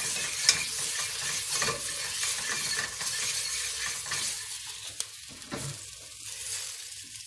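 Wire whisk stirring and scraping a thick butter-and-flour roux with tomato and pepper paste in a stainless steel pot, with many small ticks of the wires on the metal. The paste and roux sizzle as they fry.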